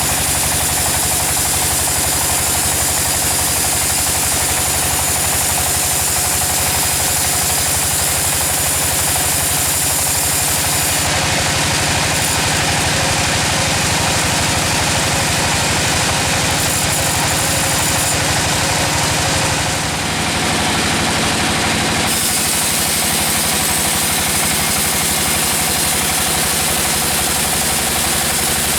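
Engine-driven sawmill machinery running steadily: a continuous engine hum under a loud hiss. The sound changes about eleven seconds in and again past twenty seconds.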